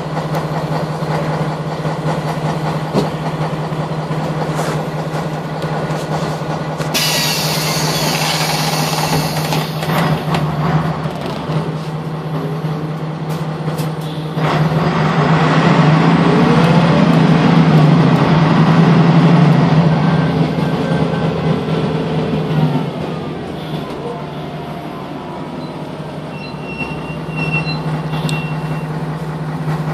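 Jelcz 120M/3 city bus heard from inside the passenger cabin while under way: a steady engine hum with body rattle. A sharp hiss of air starts about seven seconds in and lasts a few seconds, and from about fifteen seconds the engine grows louder with rising pitch as the bus pulls away and accelerates, easing off after about twenty-three seconds.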